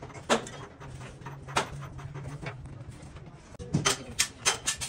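Sharp knocks and clicks, two single ones and then a quick run of them near the end, some ringing briefly, over a low steady hum that stops about three seconds in.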